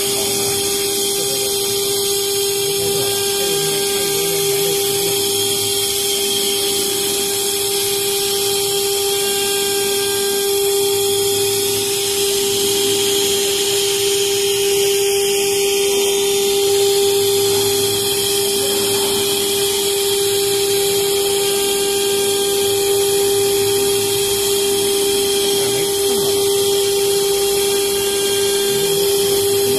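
CNC router spindle turning an end mill through an aluminium block, a steady whine over the continuous hiss of the cut.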